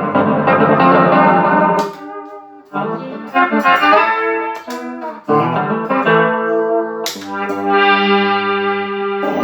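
Electric guitar played through a Line 6 POD HD500 multi-effects pedalboard and a Pignose G40V tube amp, in a sound test of the unit after its fried A/D converters were repaired. A thick chord rings for about two seconds and cuts off. Then come single picked notes and chords, and a chord struck about seven seconds in is left to ring.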